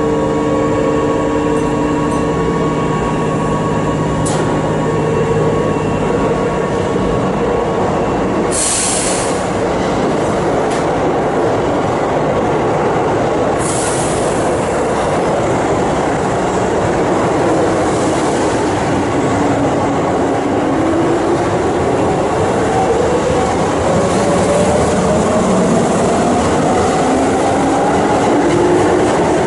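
A Keihan electric express train pulling out of the underground platform: two short hisses of air about 9 and 14 seconds in, then the traction motors' whine rising steadily in pitch as the train gathers speed, with rumble and wheel noise underneath.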